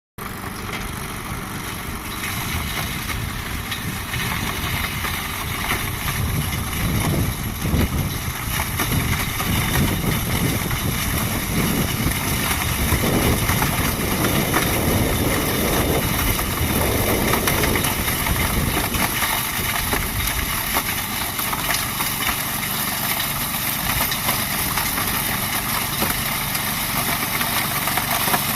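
Toro 828 two-stage snowblower's engine running steadily, heavier and fuller in the low end for a stretch in the middle.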